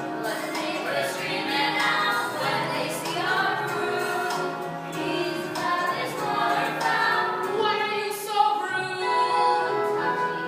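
A group of young voices singing a musical-theatre song together.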